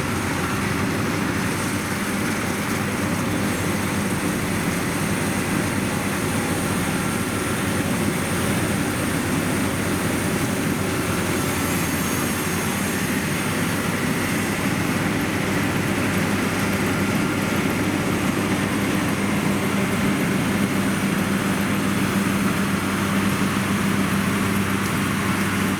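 Engines of rice-harvesting machinery running steadily, a continuous drone with a constant low hum.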